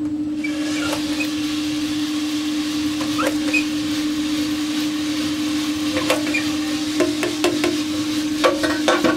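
Coffee beans dropping from the hopper into the hot drum of a Giesen drum coffee roaster and tumbling, a steady rushing that starts just after the beginning, over the roaster's constant motor hum. There are a few sharp clicks and knocks from about three seconds in.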